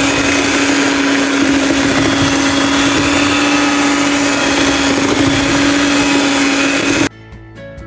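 Electric hand mixer running steadily, its beaters whisking an egg, sugar and oil batter in a stainless steel bowl, with a constant motor hum. It stops abruptly about seven seconds in.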